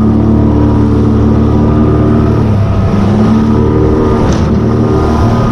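Outboard motor of a small boat running under way, its pitch dipping briefly about halfway through and then rising again.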